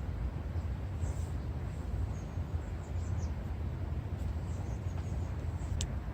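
Steady low rumbling noise, with a few faint high chirps and one quick falling chirp near the end.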